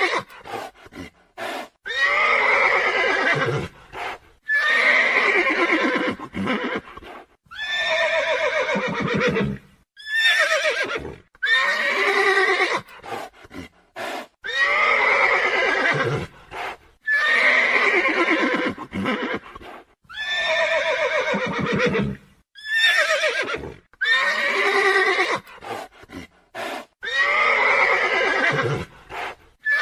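Horse whinnying over and over: about a dozen loud whinnies, each a second or two long and falling in pitch, repeated every two to three seconds like a looped sound effect.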